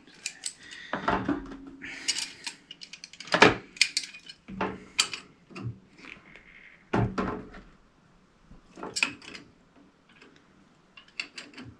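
Metal hand tools clinking and knocking on a radiator valve's fittings over a plastic tray, in irregular clicks and knocks that thin out after about eight seconds.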